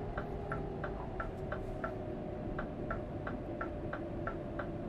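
Car turn-signal indicator ticking evenly, about three ticks a second, over the low steady drone of the car cabin.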